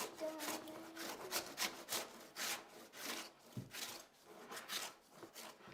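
Rhythmic scraping strokes, about three a second, fading out near the end, with faint singing in the first second.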